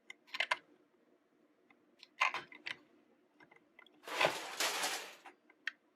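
Plastic toys being handled: a few light clicks and knocks, then about a second of crinkly rustling or scraping.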